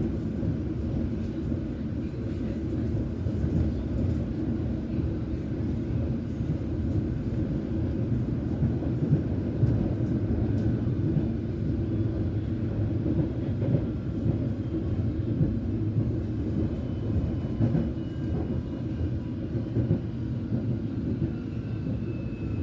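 Metropolitan line S Stock train running on the track, heard from inside the carriage: a steady rumble of wheels on rails with small irregular knocks. A faint high whine joins in about halfway through.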